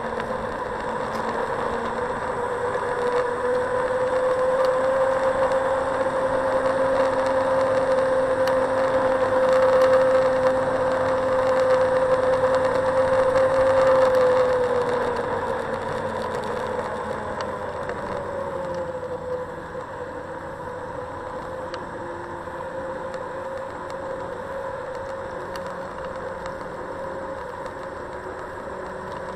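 Xiaomi Mijia M365 electric scooter's hub motor whining at riding speed over tyre and road rumble. The whine climbs a little in the first few seconds, holds steady, then drops in pitch and fades about halfway through as the scooter slows, leaving a quieter whine and rumble.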